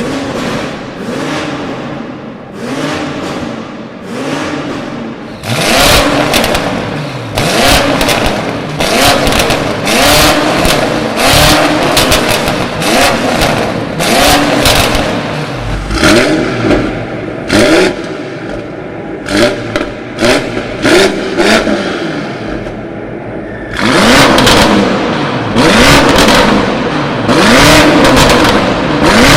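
BMW X6M Competition's twin-turbo V8 through an Akrapovic exhaust, revved again and again, its pitch rising and falling with each rev, with short sharp cracks from the exhaust. It is quieter for a few seconds in the middle, then loud again.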